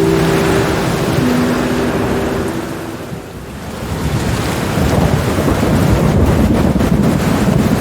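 Steady heavy rain, with a low rumble of thunder swelling in after a brief lull about halfway through. A few soft held notes sound over the rain in the first few seconds.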